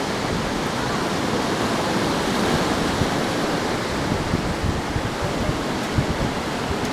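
Steady rush of ocean surf washing on the shore.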